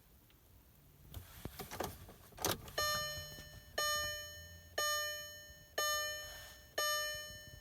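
Keys rattling and clicking, then a 2003 Volkswagen TDI's warning chime sounding about once a second, each tone fading out before the next.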